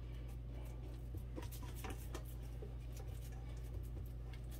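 Hands patting and pressing a raw ground-beef meatloaf mixture into a loaf in a skillet: a few faint soft pats over a steady low hum.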